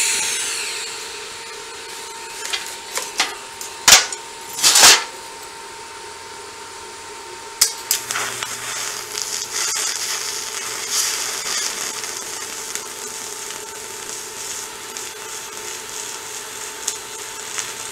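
A few sharp knocks and clicks in the first five seconds, then about eight seconds in a TIG welding arc strikes and runs steadily, a continuous hiss over a low buzz, as a lap weld is laid.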